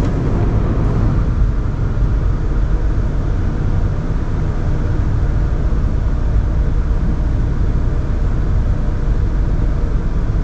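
Car wash water spray and foam rushing over a car in a tunnel car wash, heard from inside the cabin as a steady wash of noise over a deep rumble.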